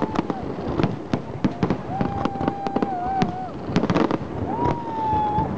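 Fireworks display going off in a dense run of bangs and crackling bursts. Two long, high, steady tones sound over them, one about two seconds in and another near the end.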